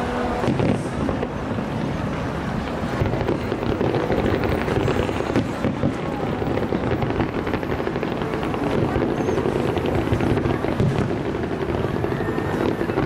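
Fireworks display going off: a dense, continuous run of pops, bangs and crackling over a steady rumble.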